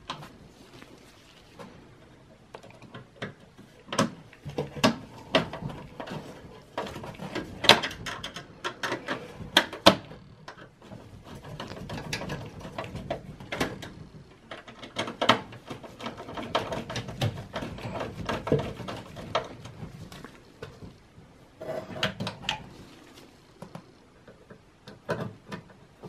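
Irregular clicks and metallic taps of a screwdriver and screws against a desktop computer's steel case and motherboard as the motherboard screws are driven in, with quieter stretches between the louder clicks.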